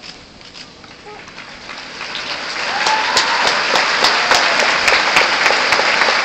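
Large arena audience applauding. It starts faint and swells to full applause about two seconds in, with sharp individual claps close by.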